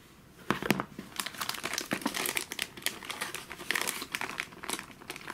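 Plastic packaging crinkling and crackling as the sealed bags of kit parts are handled and opened, starting about half a second in and going on as a dense run of crackles.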